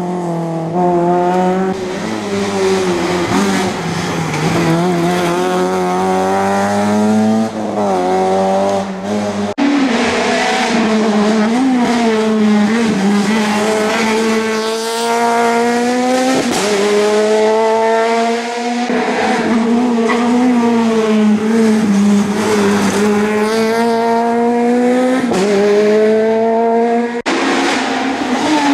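Rally car engines revving hard, the pitch climbing and dropping again and again through gear changes. The sound changes abruptly twice, about nine and a half seconds in and near the end.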